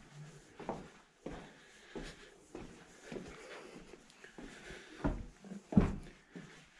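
Footsteps on a wooden plank walkway: a series of irregular thuds and knocks, the loudest two about five seconds in.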